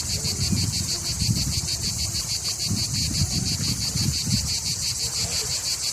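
Insects trilling steadily, a high pulsing drone at about six or seven beats a second, with wind rumbling on the microphone.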